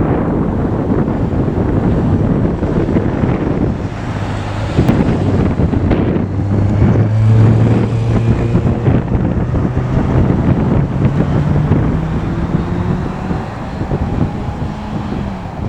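Steady roar of an airliner's cabin noise in cruise flight, with rushing air and a low engine hum that drifts slightly in pitch.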